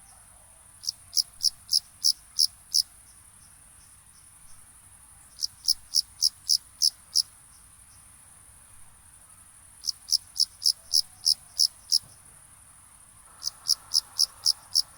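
Crickets chirping: runs of about seven sharp, high chirps at roughly three a second, repeated four times with pauses of two to three seconds between runs. A steady, very high-pitched trill runs underneath.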